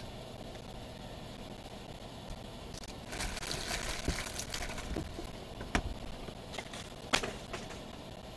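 Hands handling trading cards and their packaging: a stretch of rustling about three seconds in, then a few sharp taps as things are set down, the loudest about seven seconds in.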